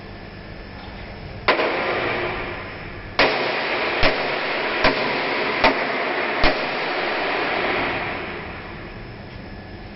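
A hammer striking a steel truck chassis rail six times, once, then after a pause five more blows in a steady rhythm. The rail rings on after each blow and fades out a couple of seconds after the last.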